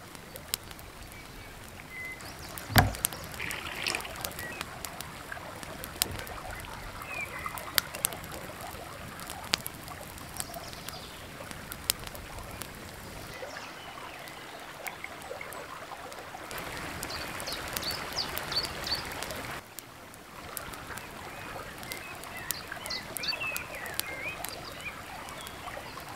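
Creek flowing steadily with birds chirping and a campfire's sharp crackles and pops. About three seconds in, a single heavy knock from the stone and clay pot being handled.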